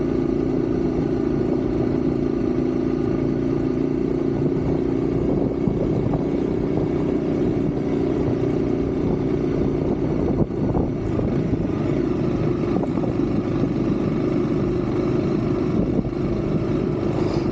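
Motorcycle engine running steadily while riding, a constant drone over rushing noise, with a single knock about ten seconds in.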